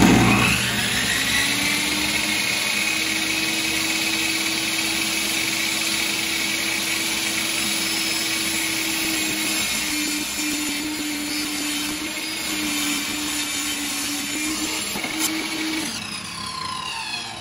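Portable benchtop table saw starting up and running, then ripping a wooden cabinet filler strip lengthwise, its hum wavering under the load of the cut. Near the end it is switched off and winds down, falling in pitch as the blade coasts to a stop.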